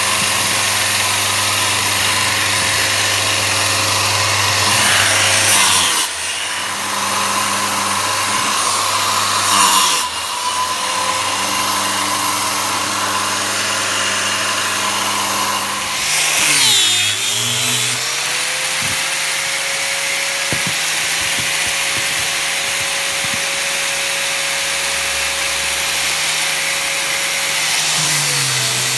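A circular saw's electric motor running and cutting small wooden strips, with short breaks twice in the first third. Past the halfway point the pitch dips and climbs back, then holds as a steady motor whine. The whine drops again at the very end as an angle grinder with a sanding pad works a wooden strip.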